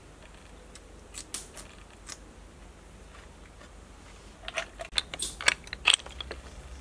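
Boiled snail shells clicking and knocking together as a hand picks through a tray of them: a few faint clicks about a second in, then a quick cluster of sharper clicks in the second half.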